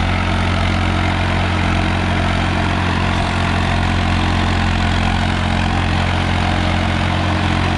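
Swaraj 855 FE tractor's three-cylinder diesel engine running steadily under load, driving a rotavator that churns the soil.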